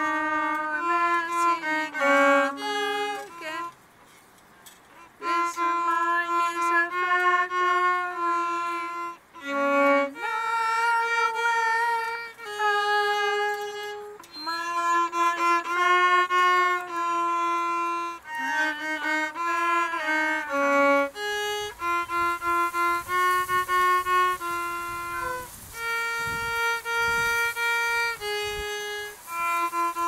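Solo violin playing a melody of held notes, one note at a time, with a short pause about four seconds in.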